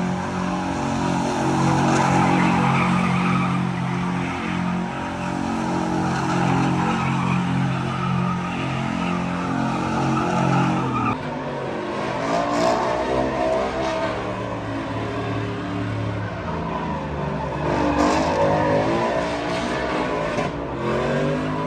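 A truck doing donuts in tyre smoke: its engine is held at steady high revs while the spinning tyres squeal. About eleven seconds in, the steady note breaks into revs rising and falling over and over.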